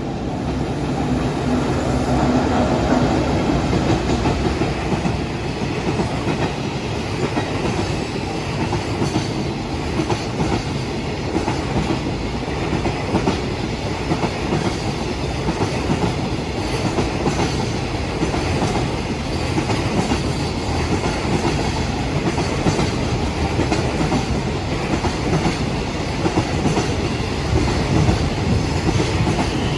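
Long container freight train passing at speed, a steady rumble of wagons with wheels clacking over the rail joints.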